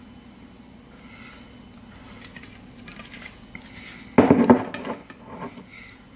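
A glass sauce bottle set down on the kitchen counter with one sharp clatter about four seconds in, followed by a few lighter knocks.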